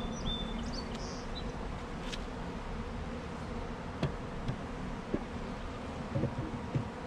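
Honeybees from a freshly installed package buzzing around the hive in a steady drone, with a few light knocks from about four seconds in as the wooden hive lid is set down on the box.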